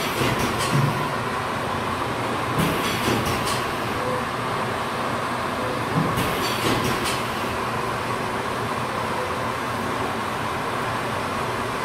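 Automatic shrink-wrapping line with heat shrink tunnel running: a steady blower noise with a high hum. Three short bursts of rattling clicks come about three seconds apart as wrapped notebooks pass over the roller conveyor.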